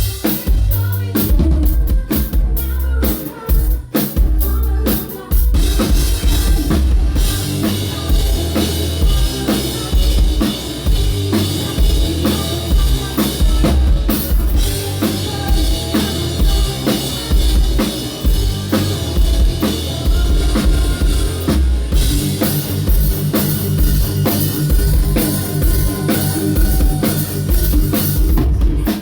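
Loud live band music with a heavy, driving drum-kit beat and deep bass. The sound turns fuller and denser about five seconds in, dips briefly near the middle, and changes pattern about two-thirds of the way through.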